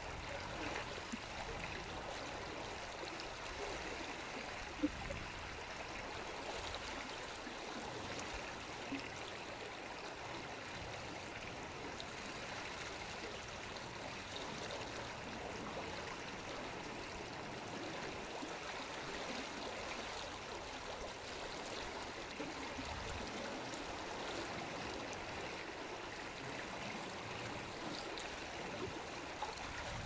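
Stream water flowing steadily, an even rushing noise, with one brief click about five seconds in.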